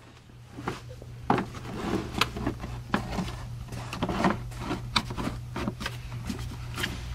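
L322 Range Rover's plastic fan shroud being worked into the clips and slots on the radiator: irregular clicks, knocks and scraping of plastic on plastic, over a steady low hum.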